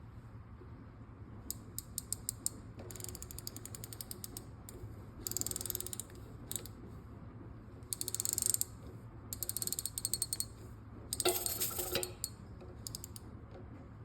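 Radiator making runs of rapid ratchet-like ticking and clicking, coming in bursts, with louder, denser rattling spells a few times through the middle and near the end, over a faint steady low hum.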